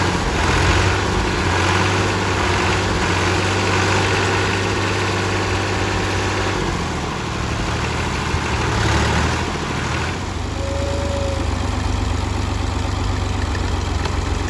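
Ghazi farm tractor's diesel engine running as it tries to drive out of deep mud, the rear wheels sunk in and churning. The sound swells and eases in the first ten seconds, then settles into a steady run.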